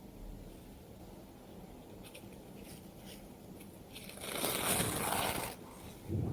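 A person in an allergy sneezing fit: a loud, breathy rush of air lasting just over a second, starting about four seconds in, then a short low burst right at the end as a sneeze begins.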